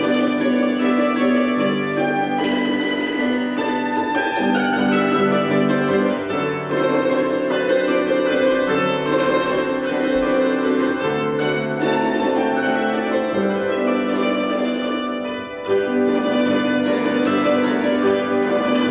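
An ensemble of Belarusian tsymbaly (hammered dulcimers) playing a tune, many struck strings ringing on together.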